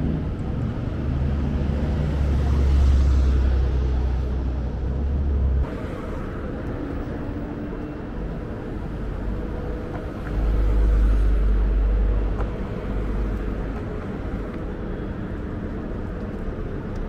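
Urban street ambience: a steady mix of traffic and city noise with faint steady hums. A heavy, deep rumble swells in the first few seconds and cuts off abruptly about five and a half seconds in, then returns more briefly around ten seconds in.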